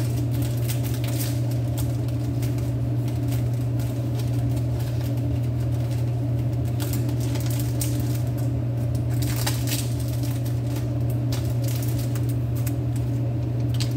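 A steady low hum, with faint scattered small clicks and rustles from a paper nail-sticker sheet being handled.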